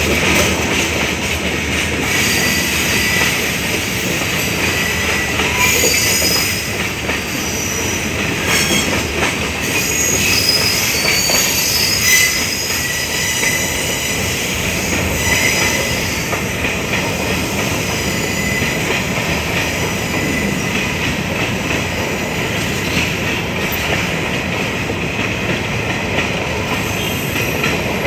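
Freight train rolling past at close range, its tank cars and covered hopper wagons rumbling steadily on the rails. High wheel squeal comes and goes, most of it in the first half.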